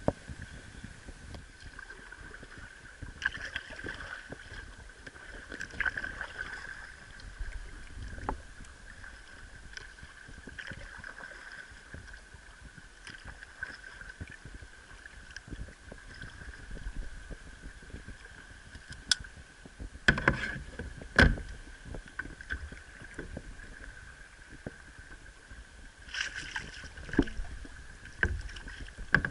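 Paddle strokes of a sit-on-top kayak: the blades splashing and dripping in the water at an irregular pace, with a few sharp knocks, the loudest a pair about twenty seconds in.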